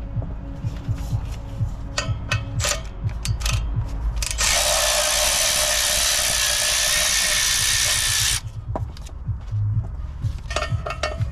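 Ratchet clicking on the clutch pressure-plate bolts. About four seconds in, an air ratchet runs for about four seconds with a loud, steady hiss of air, then stops abruptly and the hand clicking resumes.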